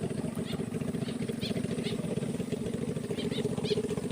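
A small engine running steadily with a fast low pulsing, with short high chirps over it.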